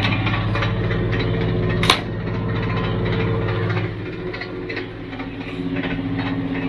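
Classic 4x4 fire truck's engine running as the truck drives along, with a single sharp knock about two seconds in. The engine note falls away somewhat about four seconds in.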